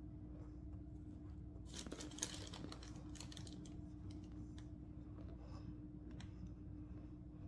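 Packed cornstarch crunching and squeaking as fingers squeeze and break it, with the crinkle of the plastic zip bag it is in. A dense run of fine crackles comes about two seconds in, then scattered single crunches.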